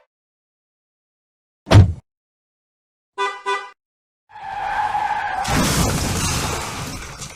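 Edited sound effects: a single sharp thud, two short beeps, then a skidding screech that turns into a loud rushing noise and fades out near the end.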